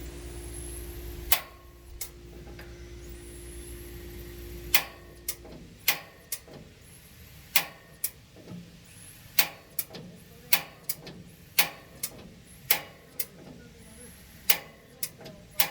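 Back burner of a Summerset TRL gas grill misfiring: a series of sharp clicks and pops at irregular intervals, roughly one a second. A steady hum with two tones runs under the first few seconds and stops about five seconds in.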